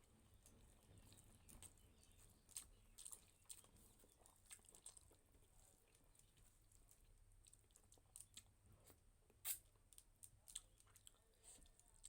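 Faint chewing and mouth smacks of a person eating rice and curry: scattered soft clicks, with one louder smack about nine and a half seconds in.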